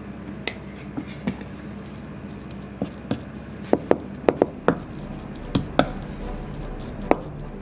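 Kitchen knife chopping minced Pacific saury together with white miso on a cutting board, mincing the mix into namerō. A few light taps at first, then a run of sharper, irregular knocks of the blade on the board from about halfway through.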